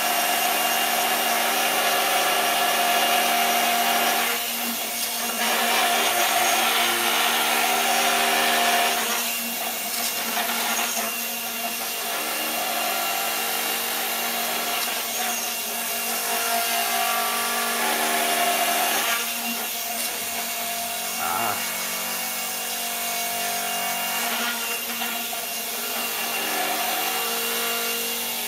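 The spinning gyroscopes of a homemade gyroscopic inertial thruster, a steady electric-motor whine of several tones over a hiss. Its pitch and loudness shift every few seconds as the machine is run through its braking cycles.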